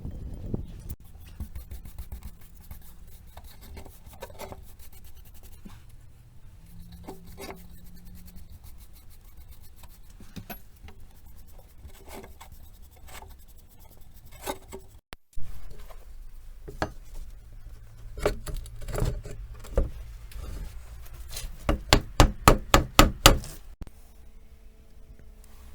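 Hand work on a steel shovel under restoration: scattered taps and scraping, then a quick run of about eight loud knocks near the end.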